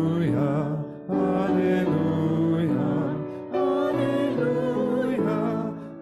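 Voices singing a hymn together, led by song leaders, with instrumental accompaniment. The singing goes in phrases, with short breaks about a second in and again past three seconds.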